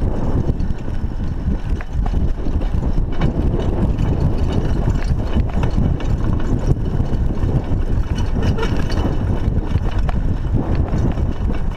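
Bicycle riding over a rough dirt track, recorded by a chest-mounted GoPro: a steady loud rumble of wind on the microphone and tyres on dirt, with scattered clicks and rattles from the bike.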